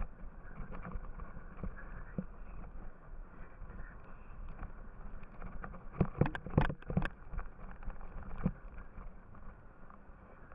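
A yooner's ski rumbling and scraping over snow, heard through a body-mounted action camera, with a quick cluster of knocks about six to seven seconds in and another single knock a little later.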